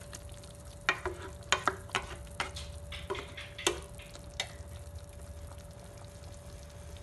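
A pan of chicken afritada simmering in tomato sauce, nearly cooked, with scattered sharp pops and clicks in the first half that then settle. A steady low hum with a faint whine runs underneath.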